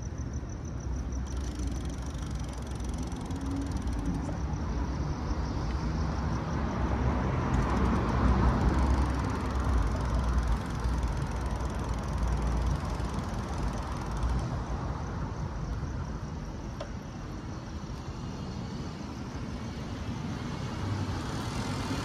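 City street traffic and road noise heard from a moving bicycle on wet streets, with a vehicle swelling past, loudest about eight to eleven seconds in.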